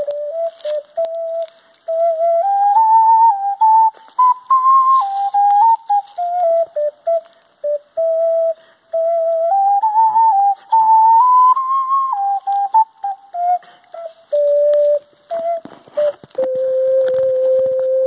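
Clay ocarina playing an improvised melody: clear, almost pure notes stepping up and down with short breaks between phrases. Near the end it settles onto one long held low note.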